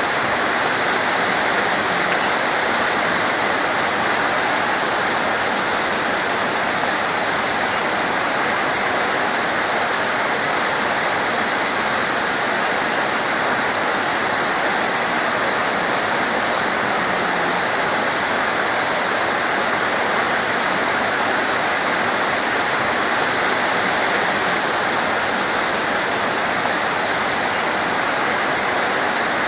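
Heavy torrential rain falling steadily, a dense, even hiss of water.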